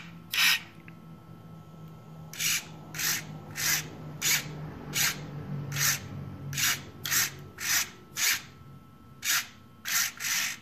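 RC truck steering servo whirring in short bursts as it swings the front wheels from side to side through a clothes-hanger wire linkage, about fourteen strokes at uneven intervals. A faint steady low hum runs underneath and stops about two-thirds of the way through.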